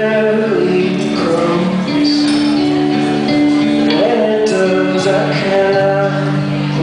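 Live music: a man singing at the microphone over his own electric guitar, his voice sliding up into long held notes.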